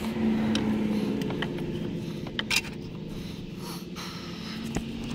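A few sharp metal clicks and scrapes as the inner end of a replacement CV axle is worked onto the intermediate shaft by hand, the loudest pair about two and a half seconds in. A steady low hum runs underneath.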